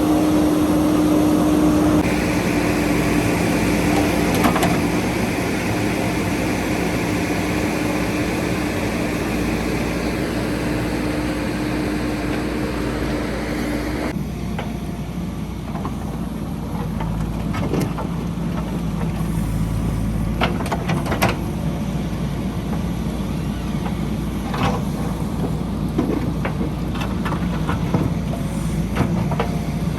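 JCB 3DX backhoe loader's diesel engine running steadily, its sound changing abruptly a couple of seconds in and again about halfway through. In the second half, sharp knocks and clanks come now and then over a lower rumble.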